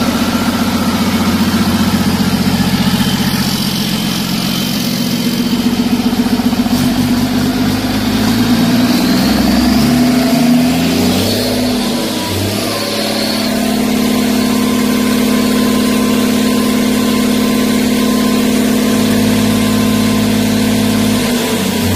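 Doosan DL08 six-cylinder turbodiesel running on its first test run after being rebored. Its speed shifts up and down about halfway through, then settles into a steady run.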